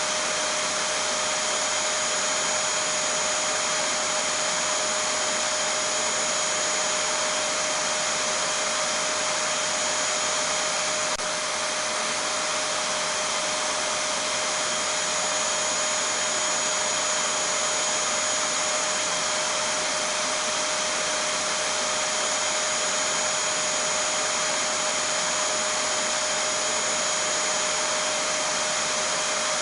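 Vacuum cleaner running steadily: an even rushing noise with a constant whine, unchanging in pitch and level, with one faint click about eleven seconds in.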